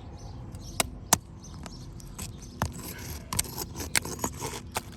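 A thin pry tool scraping under brittle asphalt shingle tabs and breaking their strong sealant strips: two sharp clicks about a second in, then a run of crackling scrapes and clicks.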